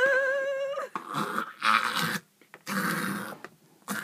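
A person's voice holding one high, steady note for about a second, then several harsh, raspy coughing and spluttering bursts: the throat reacting to a dry mouthful of ground cinnamon.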